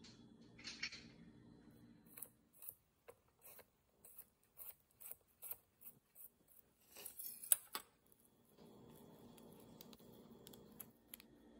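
Kitchen knife chopping on a wooden cutting board while mincing garlic cloves: a string of sharp taps about two a second, with one louder knock later on. A steady low hum comes in during the last few seconds.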